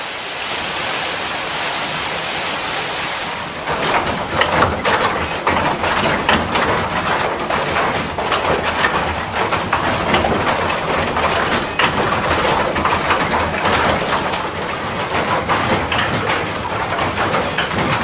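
Water pouring off a wooden waterwheel, a steady rush. A few seconds in it gives way to the dense rattling clatter and rumble of a water-powered sawmill's gearing and machinery running.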